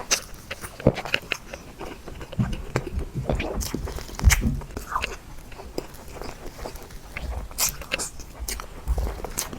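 Close-miked eating of soft chocolate cake: wet chewing and mouth sounds with many sharp clicks and smacks at an uneven pace.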